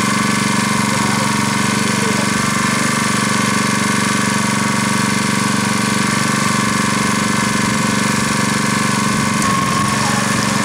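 Airlessco Sure Stripe 3650 line striper running steadily: its small petrol engine drives the airless piston pump, which is circulating water through the return line to flush the storage oil out of the pump.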